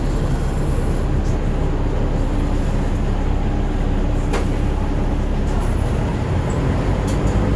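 Cabin noise of a moving Volvo bus: a steady diesel engine drone and road rumble. A single sharp click comes about four and a half seconds in.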